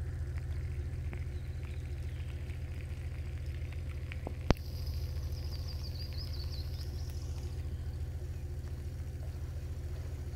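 Steady low engine rumble from a tracked fire-service vehicle idling close by. A single sharp click comes about four and a half seconds in, and a bird twitters briefly just after it.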